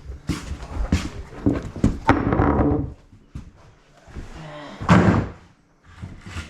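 A run of knocks and thuds during construction work, with a louder thump about five seconds in.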